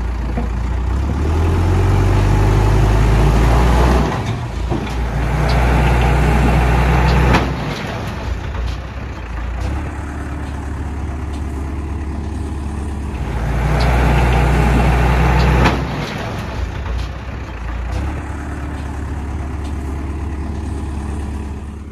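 Caterpillar backhoe loader's diesel engine working, revving up in three stretches of a few seconds each and settling back to a steady lower run in between. A sharp knock ends the second and third stretches.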